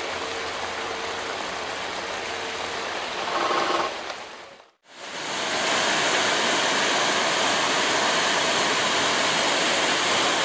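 Steady rush of heavy rain and running water. A brief pitched tone sounds about a third of the way in, then everything fades to silence for a moment before the rush comes back louder.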